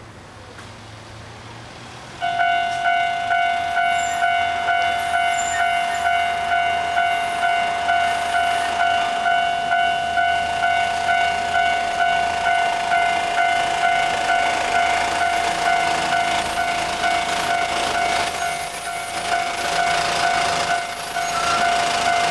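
Japanese railway level crossing warning bell starting up about two seconds in and ringing steadily, a repeating ding about twice a second. Near the end a rising rumble joins it as a train approaches.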